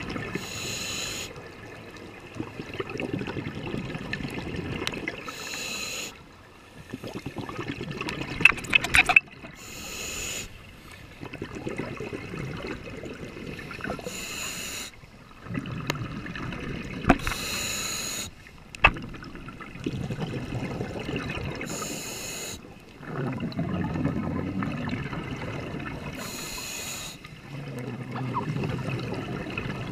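Scuba regulator breathing underwater: a short hiss on each inhale about every four seconds, alternating with longer spells of bubbling exhalation. A few sharp clicks stand out around the middle.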